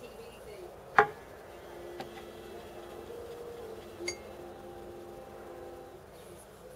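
Paintbrush tapping a tall glass of water: one sharp clink about a second in and fainter ones near two and four seconds, each followed by a faint ringing of the glass.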